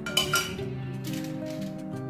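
Background music with held tones; in the first half second, two quick clinks of a metal spoon against the steel pan as the last of the caramel is scraped out.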